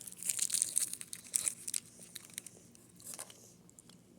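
Plastic snack wrapper crinkling and rustling in quick crackles that die away about two seconds in, with a few faint crackles a second later.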